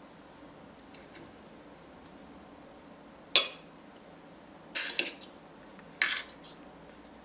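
Metal spoon and fork clinking and scraping on a ceramic plate: one sharp clink about three and a half seconds in, then two short bursts of clatter near the end.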